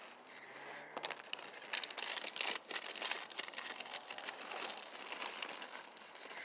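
Close, irregular crinkling and rustling of plastic tarp and bedding being handled and shifted, a dense run of small crackles.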